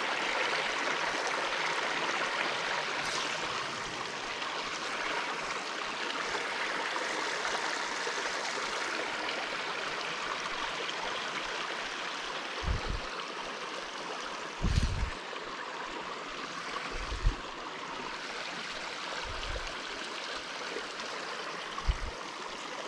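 Small creek flowing: a steady rush of running water. A few short low bumps come in the second half.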